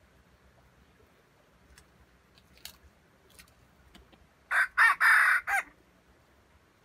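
Red junglefowl rooster crowing once, a short crow of about a second broken into four quick parts, starting about four and a half seconds in. A few faint clicks come before it.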